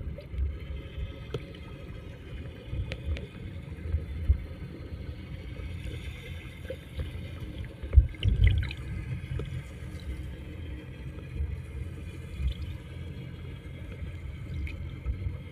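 Water lapping and sloshing against a small boat, with an irregular low rumble and a few knocks, the loudest about eight seconds in.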